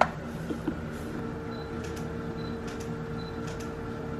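A steady machine hum, with a sharp click and a brief falling squeak right at the start, then two light knocks about half a second later.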